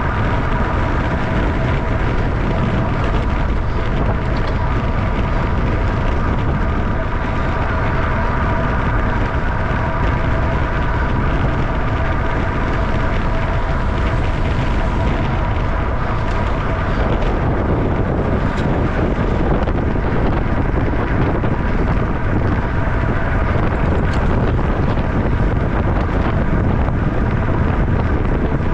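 Wind rushing over a bike-mounted camera's microphone as a racing bicycle rides at about 25–30 mph. A steady whine sits over it through the first half and fades out a little past halfway.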